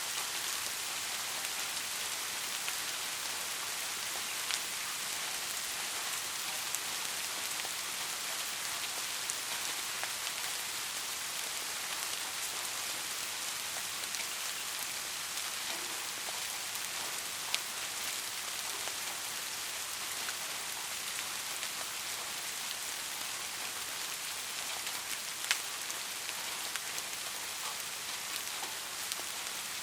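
Steady rain pattering on a surface, an even hiss with now and then a sharper tick of a single drop.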